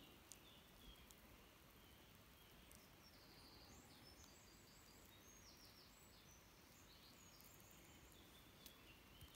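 Near silence with a faint songbird chirping in the background, a run of short high notes through the middle, and a few faint clicks.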